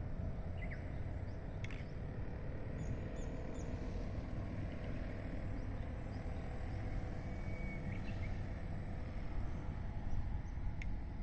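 Outdoor background noise: a steady low rumble with scattered faint bird chirps and two brief sharp clicks, one about two seconds in and one near the end.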